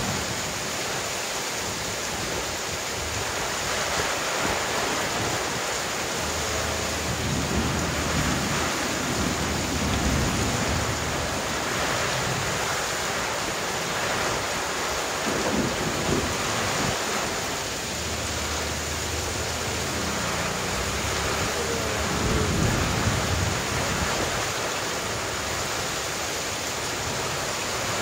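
Heavy rain pouring down steadily onto the street and roofs, with swells of low rumbling a few times.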